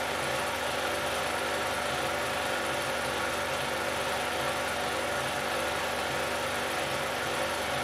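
Steady mechanical hum with a haze of hiss, unchanging in level and pitch.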